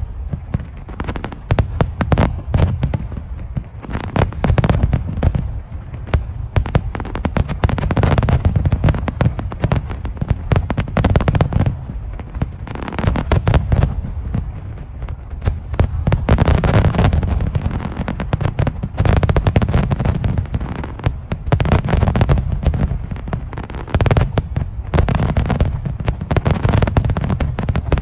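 Aerial fireworks display going off continuously: rapid crackling bursts and sharp bangs over deep booming shell explosions, with no pauses.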